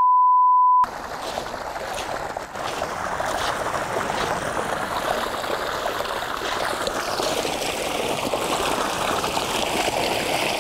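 A loud single-pitch beep lasting just under a second, then a steady rush of running water, like a stream or a trickle.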